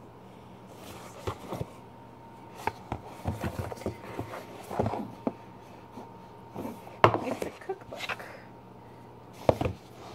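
Cardboard recipe box being handled on a wooden table: cardboard rubbing and scraping as the lid comes off and goes back on, with a few knocks as the box is set down. The loudest knocks come about seven seconds in and near the end.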